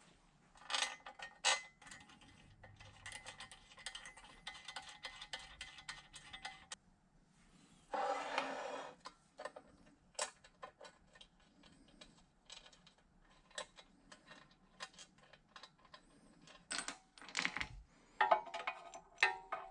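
Small metal clicks and clinks of nuts being run by hand onto short lengths of threaded rod and of steel parts touching, as a cast iron drill press base is bolted to a steel plate. The ticking is dense and rapid for the first several seconds, with a brief louder rasp about eight seconds in, then scattered clicks.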